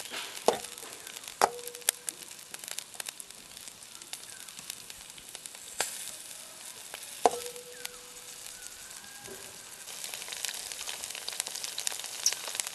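Thin green chillies sizzling in a little oil in a steel wok while a wooden spatula stirs them. The spatula knocks against the pan a few times, two of the knocks leaving a short metallic ring, and the sizzle grows louder near the end.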